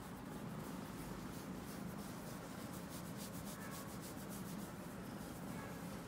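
Domestic kitten purring, a steady low rumble, while a hand rubs its fur with a soft scratchy rubbing.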